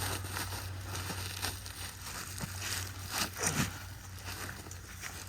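A bag full of apples being handled, with crinkling and rustling and a few short knocks.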